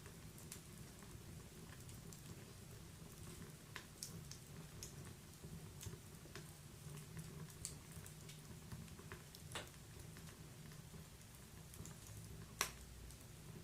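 Wood fire in a fireplace crackling softly: sparse, irregular sharp pops and ticks, the loudest about twelve and a half seconds in, over a low steady rumble.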